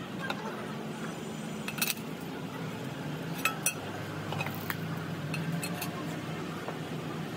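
A handful of light metallic clinks at irregular intervals, like tools and metal parts being handled during leaf spring repair work, over a steady low hum.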